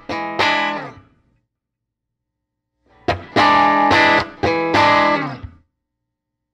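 Electric guitar strumming chords through a Fender Pro Junior IV tube amp with a 10-inch Jensen speaker, demonstrating its modified volume circuit. Chords ring out and stop about a second in; after a silence, a run of several strummed chords comes in about three seconds in and cuts off about two seconds later.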